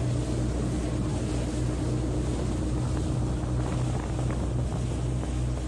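A small speedboat's engine running steadily at cruising speed, a constant low hum, with wind buffeting the microphone.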